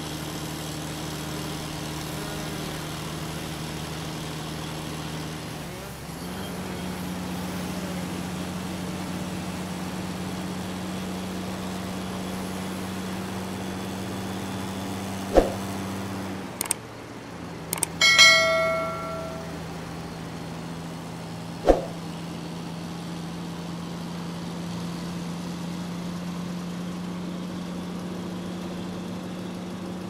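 Forestry harvester's diesel engine running steadily, its pitch stepping a couple of times as the machine works. Around the middle, a few sharp clicks and a short ringing bell-like chime from a subscribe-button sound effect.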